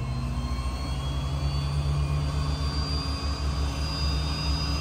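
Cirrus SF-50 Vision Jet's Williams FJ33 turbofan being dry motored on its starter, with fuel and ignition off, during a fresh-water compressor rinse. A steady rumble runs under a high whine that rises slowly as the engine spools up, heard from inside the cockpit.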